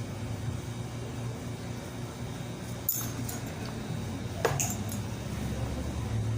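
A couple of light clinks of small hard objects, one about three seconds in and a brighter one about four and a half seconds in, over a steady low hum.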